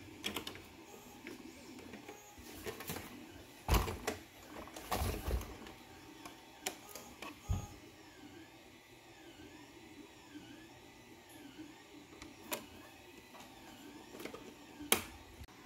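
Hands handling a WPL B36 Ural 1/16-scale RC truck: scattered light plastic clicks and taps from its small hinged cab doors being swung open and shut. A few sharper knocks stand out, about four seconds in and near the end.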